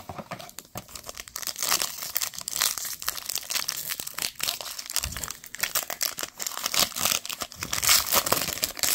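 Foil wrapper of a Panini Absolute football card pack crinkling and tearing as it is handled and ripped open: a dense run of crackles, louder about two seconds in and again near the end.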